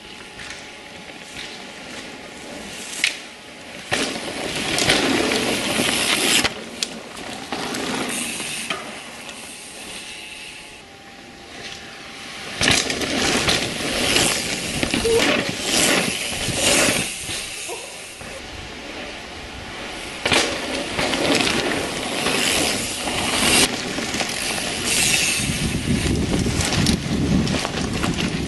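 Downhill mountain bikes riding a rough dirt trail: tyre noise and the rattle of the bikes over the ground, with sudden knocks and clatters several times. The sound changes abruptly a few times as the shots cut.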